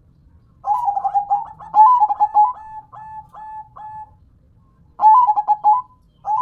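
Zebra dove (perkutut) singing its coo: a fast rolling run of purring notes that breaks into several slower, separate drawn-out coos, then a second short rolling phrase about five seconds in and a third starting at the very end.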